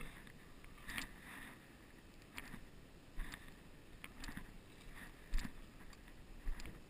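Footsteps crunching on gravel and wet snow: a string of short, irregularly spaced steps.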